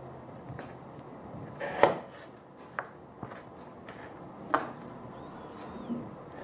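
Kitchen knife slicing radishes on a plastic cutting board: about six sharp, uneven knocks as the blade cuts through onto the board, the loudest about two seconds in.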